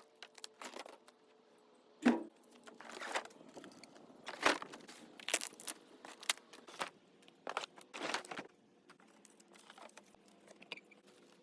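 Irregular knocks, clatters and crinkling of hand demolition work, old caravan interior fittings being pulled apart and handled, with the sharpest knocks about two and four and a half seconds in.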